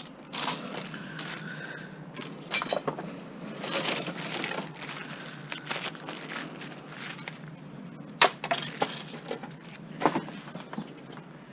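Junk and scrap pieces being handled and tossed while sorting, an irregular clatter of knocks and clinks with rustling between; the sharpest knocks come about two and a half seconds in, eight seconds in and ten seconds in.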